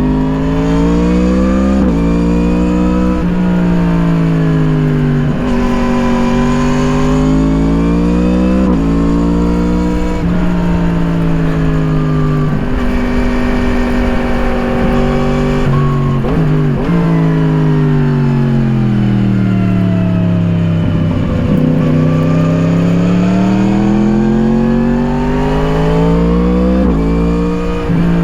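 Yamaha MT-10's crossplane inline-four through an Akrapovič slip-on exhaust, heard on board at riding speed. The engine note climbs hard, with quick sharp drops at each upshift, then sinks away slowly off the throttle before climbing again. This happens several times over.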